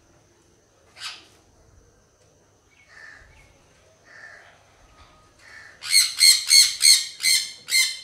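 Parrot squawking: a few faint short calls, then about six seconds in a rapid run of about seven loud, harsh squawks, roughly three a second.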